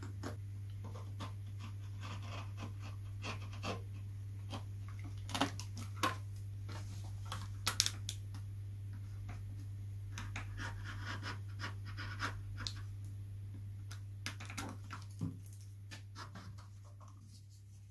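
Hobby knife cutting and scraping through heat-shrink plastic covering film over a balsa wing's servo hole: faint, irregular small scratches and clicks, a few sharper ones. A steady low hum runs underneath.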